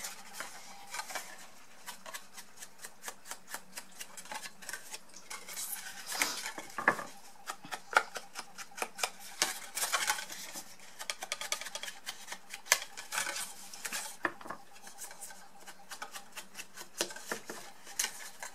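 A foam finger-sponge dauber dabbed and rubbed along the edges and fold points of kraft cardstock to shade them with ink. It makes a quick run of light taps, several a second, with louder scrapes of card and sponge now and then.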